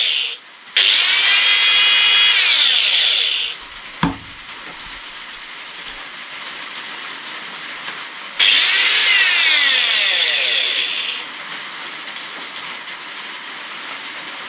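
DWT angle grinder running unloaded, test-run after fitting new carbon brushes. It is switched on twice, each time spinning up with a rising whine, holding full speed for a second or two, then coasting down as the pitch falls. The tail of an earlier run ends just at the start, and a single sharp knock comes about four seconds in.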